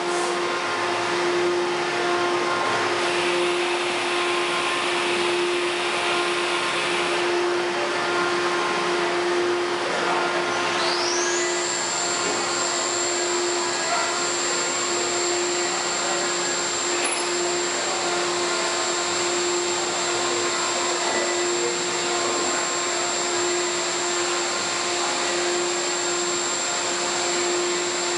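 Acer 4VK CNC vertical milling machine running under power: a steady motor hum over a noisy whir. About eleven seconds in, a high whine rises quickly and then holds steady.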